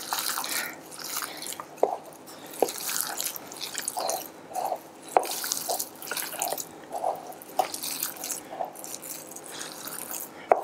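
Hands squeezing and kneading a moist stuffing of minced meat and milk-soaked bread with diced pepper in a glass bowl: irregular soft wet squelches, with a few sharp clicks.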